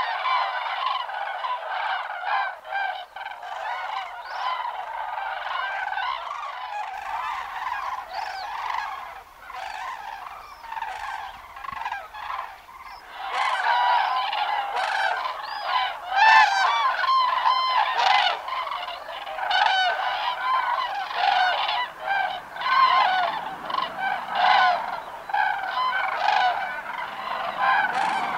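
A flock of common cranes calling: many overlapping calls in a continuous chorus, growing louder about halfway through.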